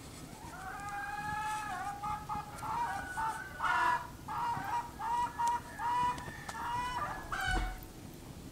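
Chickens calling, long drawn-out notes for the first couple of seconds, then a run of short clipped calls.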